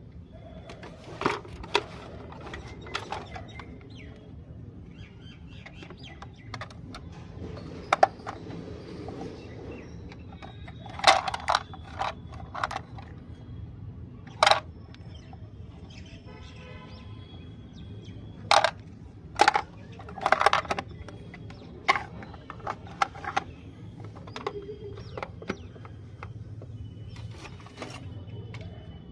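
Small plastic toy furniture being handled: sharp plastic clicks and knocks as the tiny hinged doors are opened and snapped shut and the pieces are set down on a hard floor, about a dozen scattered through, some in quick pairs.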